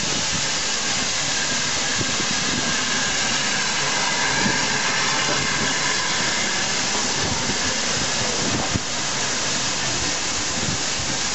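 Steam locomotive hissing steadily as it moves slowly along the platform, with a few faint knocks.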